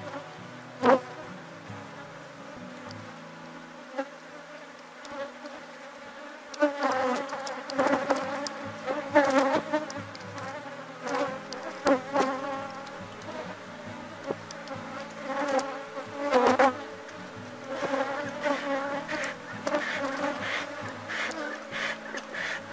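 Honeybees buzzing in a steady drone around an open hive, the colony agitated and more defensive than usual. Frequent sharp knocks and scrapes come from a steel hive tool and the wooden frames and box, thickest from about a quarter of the way in.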